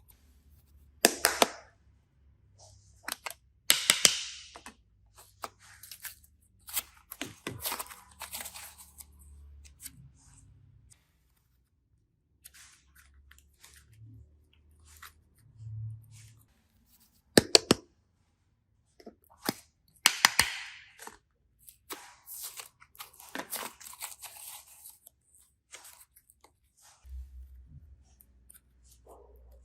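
Close-up handling of crafting materials: sharp clicks, snaps and short crackling, crinkling rustles come and go between quiet gaps, with a few loud snaps spread through.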